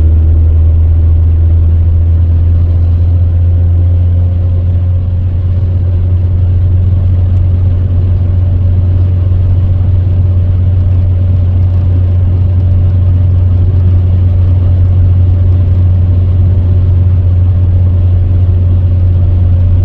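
Steady road and engine drone heard inside a moving Toyota Tercel wagon's cabin, a constant low hum with an even rush of road noise over it, not yet treated with sound deadener.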